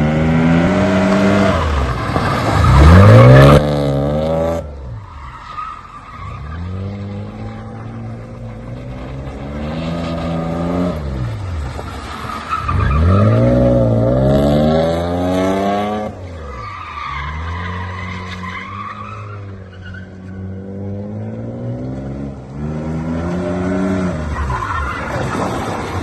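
Mercedes-Benz E350 engine revving hard and falling back again and again while its tyres squeal and skid in drifting manoeuvres. The loudest rev is about three seconds in.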